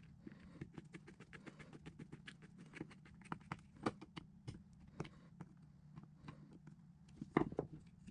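Quick small clicks and taps of metal parts being handled inside an electric motor's end bell, as its wires and switch plate are worked on with a small tool. The loudest knocks come about four seconds in and again near the end, over a steady low hum.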